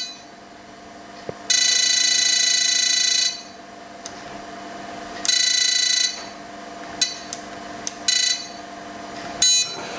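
Electronic buzzer in a cheese press's control box beeping as its buttons are pressed to set the pressing weight and time. There is a long beep of nearly two seconds, a shorter one, then three brief ones, over a faint steady hum.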